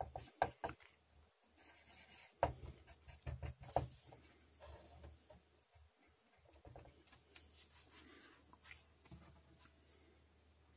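Close handling noises of small objects: a quick run of small clicks and taps in the first few seconds, then fainter scattered ticks and light rubbing.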